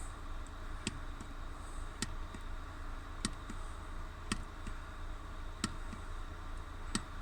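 Six light sharp clicks, roughly one every second and a bit, over a steady low hum inside a truck cab.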